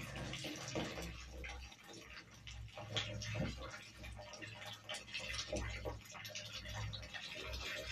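Heated milk poured in a thin stream from a steel pot, held high, into a wide round kaymak tray, splashing steadily. Pouring from a height is meant to make the milk foam, the key step in making kaymak.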